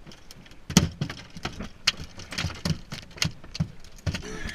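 A landed yellowtail flopping on a boat deck: its body and tail beat the deck in a rapid series of sharp thuds, about three a second, starting about a second in.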